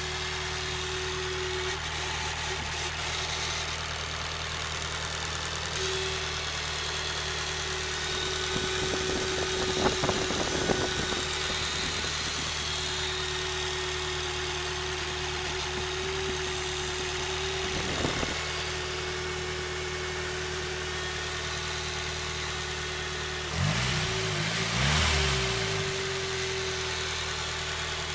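Nissan SR20DET turbocharged 2.0-litre four-cylinder idling steadily, with a steady high tone over the idle and a few knocks about a third of the way in. Near the end the engine is briefly revved and drops back to idle.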